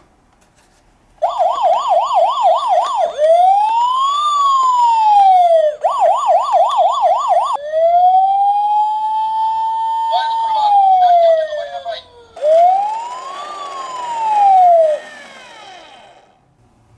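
Police car siren stepping through its patterns: after a moment of quiet, a fast yelp, then a slow wail rising and falling, the fast yelp again, a long wail that holds near the top before sliding down, and one more rise and fall that fades away.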